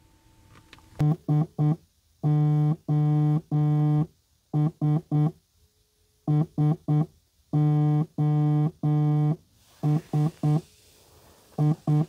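Mobile phone ringtone for an incoming call: a synthesized beeping tone that taps out the Morse code SOS pattern, three short, three long, three short. The pattern sounds twice and starts again near the end.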